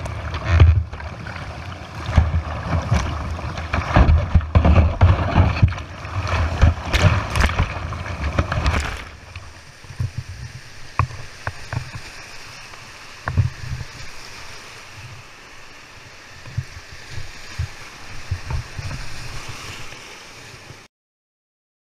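White-water rapids rushing and splashing around a kayak, with wind rumbling on the microphone. The rush is loud and choppy for the first nine seconds or so, then settles to a quieter steady flow with a few sharp knocks, and cuts off suddenly near the end.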